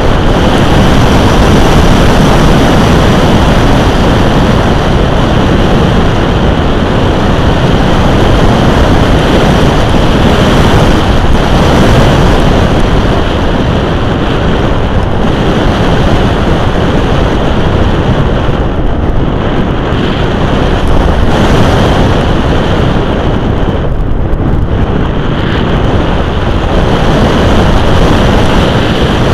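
Loud, steady rush of wind over the onboard camera of a radio-controlled glider in flight, swelling and easing slightly now and then.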